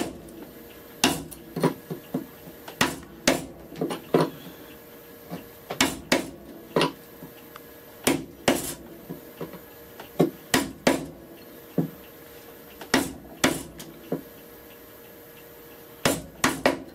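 A wood chisel being struck in short clusters of two or three sharp knocks, every second or two, as it chops out a hole in the hardwood body of a hand-made rabbet plane.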